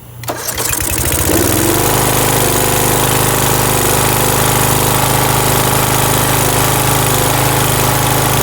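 A John Deere GX85 riding mower's 13 hp Briggs & Stratton engine cranks on ether with its carburettor choked by a thumb. It catches about a second in and settles into steady running.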